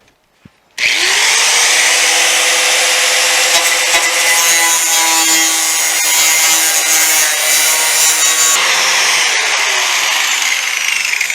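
Angle grinder biting into sheet steel, starting abruptly about a second in and running steadily with a whine under the grinding noise. Near the end it comes off the metal and its pitch falls as the disc winds down.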